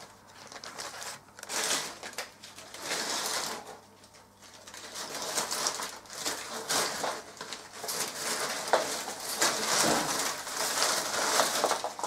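Rummaging through the kit's small parts by hand: rustling that swells and fades several times, with a few small clicks.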